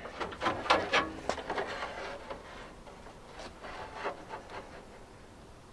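Handling noise: a quick run of knocks and scrapes, loudest in the first second or so, thinning to lighter rubbing and rustling that fades out.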